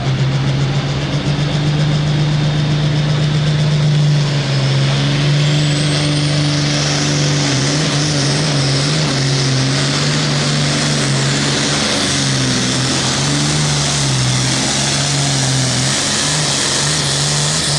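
John Deere 8410 Pro Farm pulling tractor's diesel engine running at full power under load while it drags the weight-transfer sled. The engine holds a steady pitch with a few brief dips.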